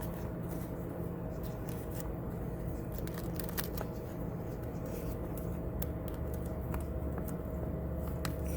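Crinkling, crackling plastic packaging of a replacement water-heater thermostat kit being handled, with many small irregular clicks over a steady background hum.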